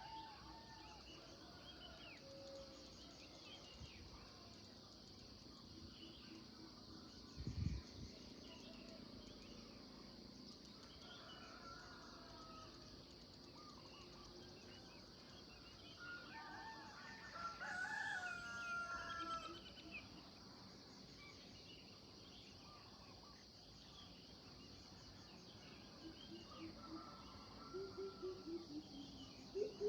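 Morning birdsong: faint chirps and short whistles from several birds over a steady high hiss. A louder, drawn-out call lasts about three seconds just past the middle, and a quick run of repeated calls starts near the end.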